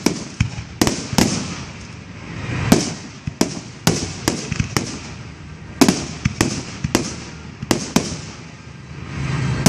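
Aerial firework shells bursting in quick succession: a string of sharp bangs, roughly fifteen at uneven intervals, each trailing a rolling echo.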